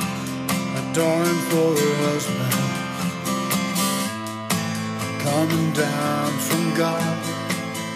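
Music led by strummed acoustic guitar, with a melody line over it.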